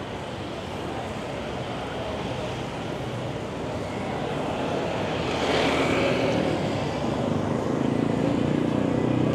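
Street traffic: motor vehicles going by, one passing close about five to six seconds in, then a low engine drone that grows louder toward the end.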